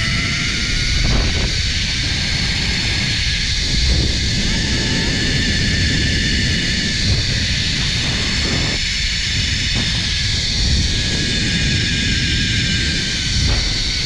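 Zipline trolley pulleys running along the steel cable with a steady whine that rises in pitch as the rider picks up speed, holds, then sags a little near the end as she slows. Wind rumbles on the microphone throughout.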